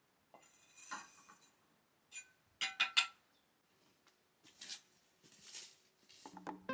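Scattered light clinks and taps of small hard objects, loudest in a quick cluster about three seconds in, followed by a few soft rustles.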